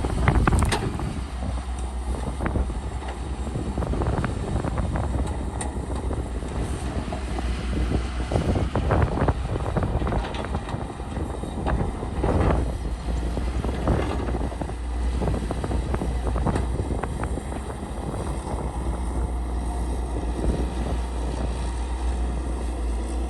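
CAT excavator's diesel engine running steadily with a low rumble while the machine works, with scattered clanks and knocks throughout.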